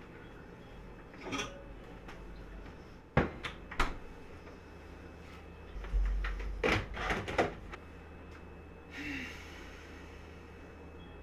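Refrigerator and kitchen cupboard doors being opened and shut: a string of sharp knocks and clicks, with a cluster of them and a low thump about six seconds in, and a brief scrape near the end, over a low steady hum.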